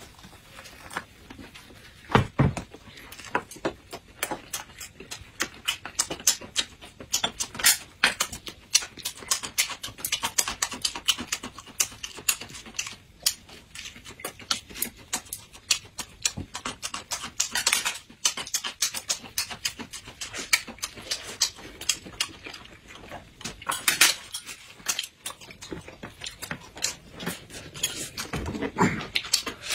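Close-miked eating sounds: wet chewing and lip-smacking clicks, several a second, with now and then the clink of chopsticks and spoons on bowls and plates.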